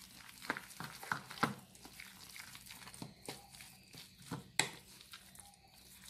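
Metal spoon stirring a thick batter of grated bottle gourd and gram flour in a bowl. The spoon makes irregular scrapes and clicks against the bowl, with two louder knocks.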